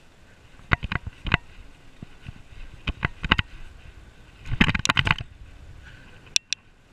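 Bicycle rattling with sharp clicks and knocks in four short bursts while riding. The busiest burst comes a little past the middle, and a quick double click comes near the end.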